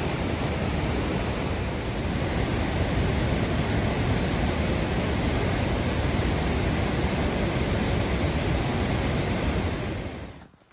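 Steady roar of a large waterfall, an even rushing noise with heavy low rumble, which cuts off just before the end.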